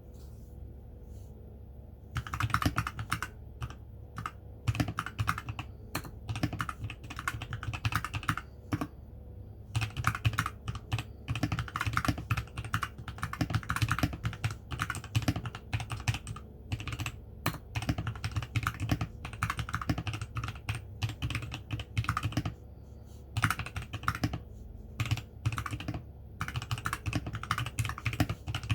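Vortexseries VX5 mechanical keyboard with lubed Outemu Brown tactile switches being typed on in quick runs of keystrokes. The typing starts about two seconds in, with a few brief pauses.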